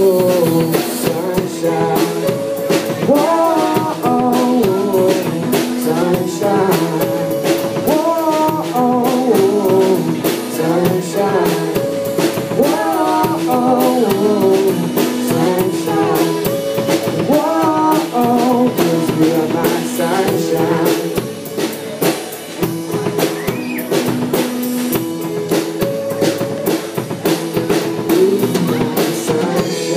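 Live band music with no words sung: a drum kit keeps a steady beat with rimshots under a bending melody line, through the song's closing instrumental section.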